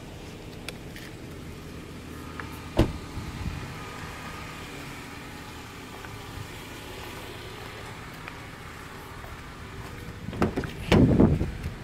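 A Honda car door being opened by its outside handle near the end: the handle is pulled and the latch and door give a short cluster of clunks. About three seconds in there is one sharp knock, and a steady low hum sits under everything.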